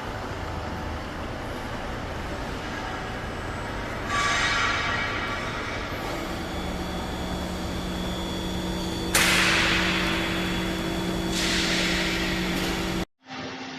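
CNC vertical machining centre running, a steady mechanical hum with a low steady tone. Short bursts of hissing noise come about four seconds in, and twice more near the end.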